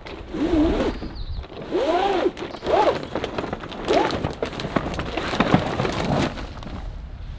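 Old vinyl RV awning fabric being pulled by hand out of its awning rail, the beaded edge sliding through the channel in several tugs, each with a rising-and-falling squeak and a zipping rasp. About five seconds in, a burst of rustling and clicks as the fabric comes free and falls.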